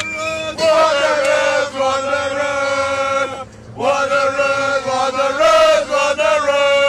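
Male voices chanting together in long held notes: two drawn-out phrases with a short break about three and a half seconds in.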